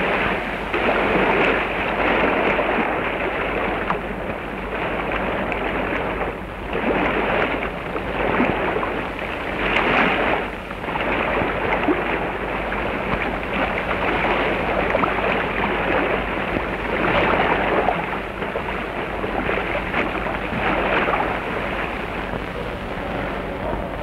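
Rushing river water: a dense splashing noise that swells and eases every few seconds.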